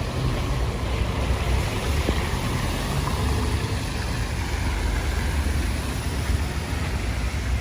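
Steady rain hiss under a heavy, uneven low rumble, the sound of walking outdoors in a downpour during a tropical storm.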